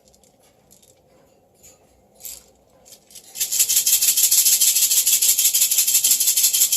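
A bell shaken rapidly by a Moluccan cockatoo: a few faint jingles at first, then about three seconds in a loud, continuous, fast ringing.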